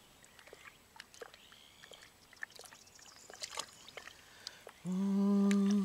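Faint scattered clicks and taps from handling a carp and a small treatment bottle in a wet carp cradle. Near the end a man hums one steady held note for about a second.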